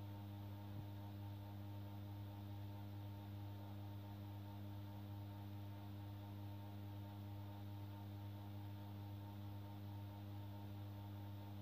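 Steady low electrical mains hum with a stack of higher overtones, and one faint click just under a second in.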